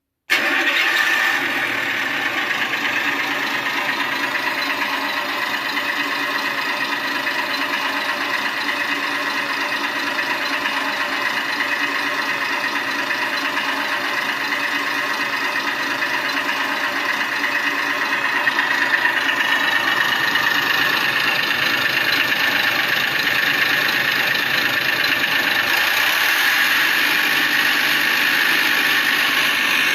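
Electronic engine sound module in a 1/6-scale Faun model playing a steady engine-idle sound. It starts abruptly and gets a little louder and brighter about two-thirds of the way through, with little deep bass.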